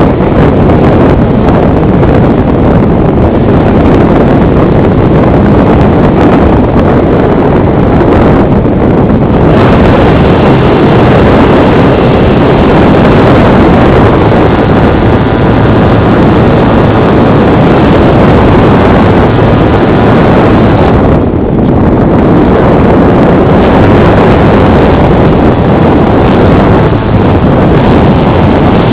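Constant wind rush buffeting the onboard camera microphone of an FPV model aircraft in flight, mixed with the steady running of its motor and propeller. The noise is loud and nearly unbroken, easing briefly about three-quarters of the way through.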